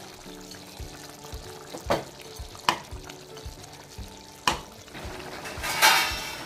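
Steel spoon stirring chicken in simmering gravy in a non-stick kadai, scraping and knocking against the pan with a handful of sharp clinks at irregular intervals. Near the end comes a loud burst of sizzling from the bubbling gravy.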